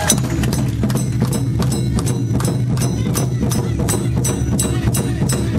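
Awa Odori street band striking up: big taiko drums under a steady, sharp clicking beat of about three strikes a second, starting abruptly.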